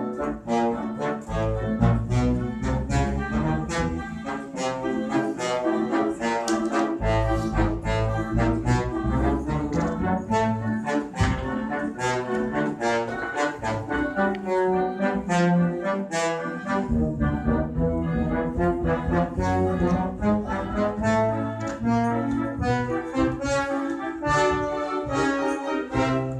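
Instrumental music led by brass, a quick run of short notes over a deep bass line that drops out a few times.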